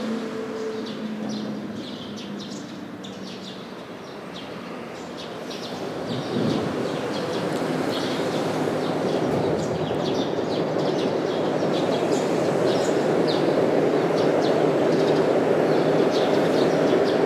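A steady rumbling noise that grows louder about six seconds in and holds, with short high bird chirps scattered throughout.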